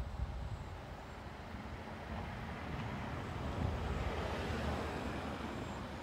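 A car passing by, its rushing noise swelling from about two seconds in and fading toward the end.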